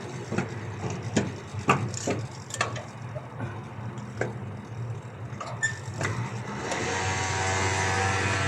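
Sharp metal clinks and knocks of hand tools during repair work on a van's engine. About two-thirds of the way in, a steady mechanical running sound with a hiss starts and holds.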